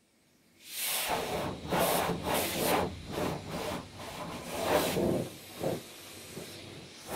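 Car wash heard from inside the car: water spray hissing against the outside of the body in uneven surges, starting just under a second in.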